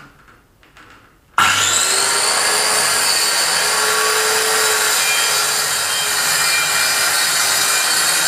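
Circular saw switched on about a second and a half in, its whine rising as the blade spins up, then running steadily as it is pushed along a guide jig, cross-cutting a plywood sheet. A few faint handling clicks come before it starts.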